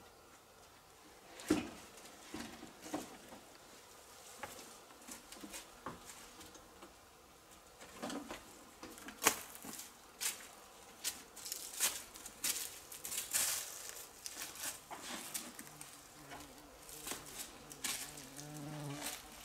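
Irregular footsteps, scrapes and rustling of a person scrambling down a rocky slope through dry brush. An insect buzzes for a few seconds near the end.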